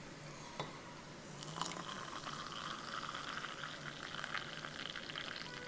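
Milk poured from a saucepan into a glass onto chocolate powder: a light tap, then a steady pouring splash that starts about a second and a half in and stops near the end.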